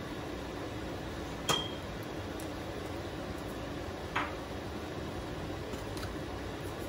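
A small glass spice shaker clinks sharply once about a second and a half in as it is set down, and a duller knock follows about four seconds in, over a steady hiss.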